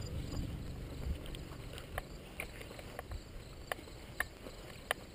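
Walking through grass with low rumbling, over which come about six sharp clicks at irregular intervals in the second half.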